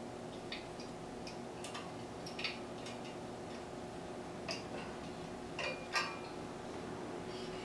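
Light metallic clicks and ticks from bicycle spokes and spoke nipples being adjusted by hand while truing a wheel, irregular and a few per second at most, the sharpest about six seconds in. A faint steady hum lies underneath.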